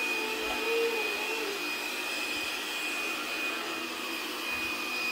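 Lubluelu robot vacuum cleaner running across a hard wooden floor: a steady whirring hum with a constant high-pitched whine.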